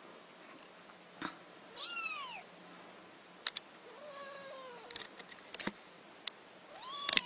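Cat meowing three times, each a drawn-out call that rises and then falls in pitch, with several sharp clicks between the meows.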